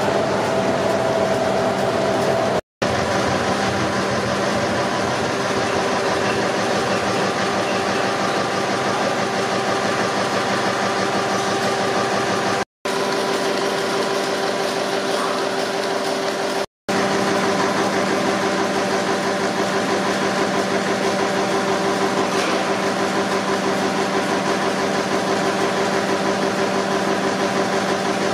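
Stationary engines running steadily: a continuous mechanical drone with steady hum tones, cut off briefly three times. It includes a green Tangye horizontal engine turning its big flywheel.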